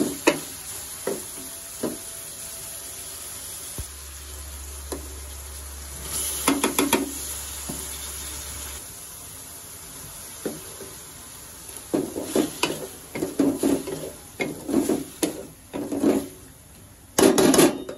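Wooden spatula stirring and scraping chicken pieces with tomatoes in an aluminium kadai, over a steady low sizzle of the food frying in ghee. The stirring comes in bursts, about six seconds in and again from about twelve seconds on.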